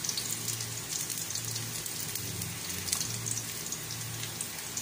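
Chopped garlic and onion frying in oil in an aluminium pot, a steady crackling sizzle, over a low hum that swells and fades.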